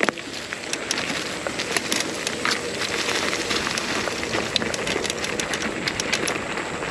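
Mountain bike rolling fast over a dirt trail covered in dry leaves and twigs: steady tyre noise with frequent clicks and rattles from the bike, picked up close at the handlebars.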